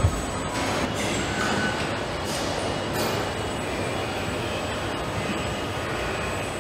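Car assembly line machinery running: a steady mechanical din with hissing and faint squeals, with a short thump right at the start.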